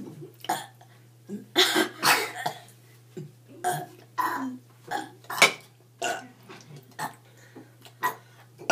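Girls burping, a quick run of short separate burps, the loudest about two seconds in and again about five and a half seconds in.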